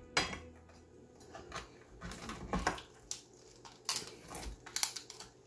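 Screwdriver prying and working into an oyster shell to shuck it: irregular small clicks, knocks and scrapes of metal against hard shell, a few a second.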